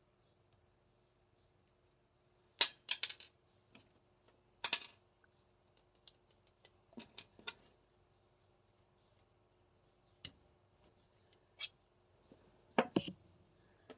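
Sharp clicks and light clatter of metal and plastic parts as a CO2 airsoft pistol is taken apart by hand, a screw and pin being worked out to reach the CO2 chamber. The clicks come singly or in short clusters, loudest about three and five seconds in and again near the end.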